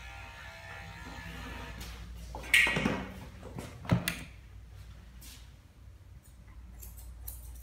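Electric dog clippers' hum stops about half a second in. Then come two loud clattering knocks about a second and a half apart as grooming tools are handled, and a few faint clicks near the end.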